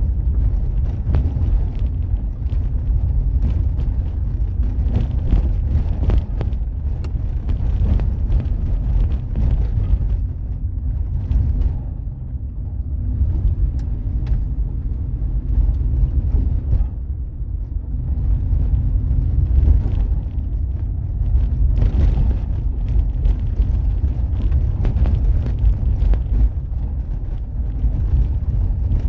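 Vehicle travelling on a winding road: a steady low rumble of engine and road noise, with a fluttering rush over it that eases briefly twice.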